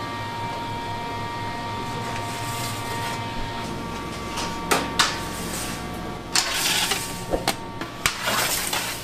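Steady hum of bakery equipment. In the second half come a couple of sharp knocks, then short scraping clatters of metal sheet pans sliding on the racks of a dough proofing cabinet.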